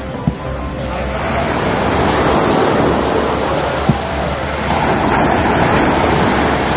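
Sea surf washing onto a sandy beach, a steady rushing that swells twice, with wind on the microphone. Two short sharp knocks, one right at the start and one about four seconds in.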